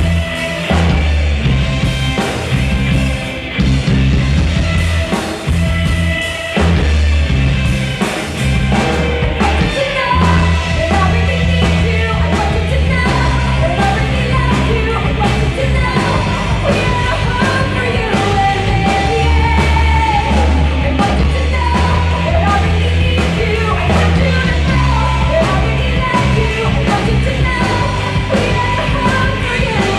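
A live rock band playing: drum kit, electric guitars, bass and keyboard, with a wavering sung melody line coming in over the band about ten seconds in.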